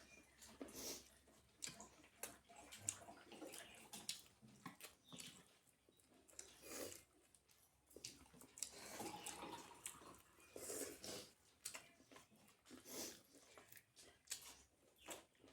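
Faint, close-up eating sounds: chewing and wet mouth noises in short, irregular bursts and clicks as flatbread and curry are eaten by hand.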